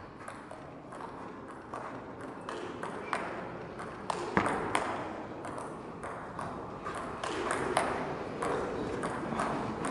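Table tennis rally: a long run of sharp ball clicks, a few each second, as the ball is struck by the rackets and bounces on the table.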